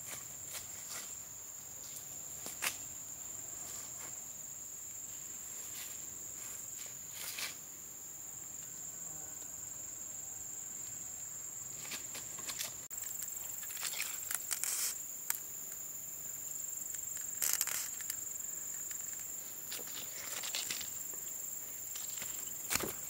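Steady high-pitched drone of insects in the forest, with scattered footsteps of someone walking on a dirt path.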